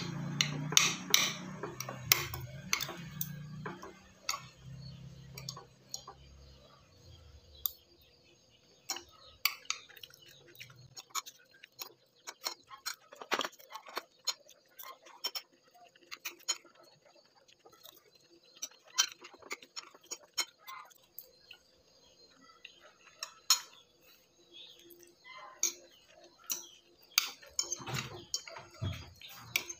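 Scattered light clicks, knocks and clinks at an irregular pace, with a low hum under the first several seconds.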